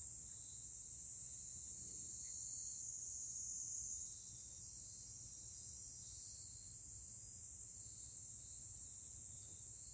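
Faint, steady high-pitched insect trilling, swelling slightly a few seconds in before falling back.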